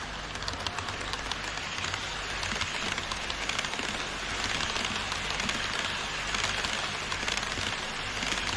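HO scale model Twilight Express passenger coaches rolling past on KATO Unitrack viaduct track: a steady rattling clatter of small metal wheels on the rails, dotted with quick little ticks, over a low hum.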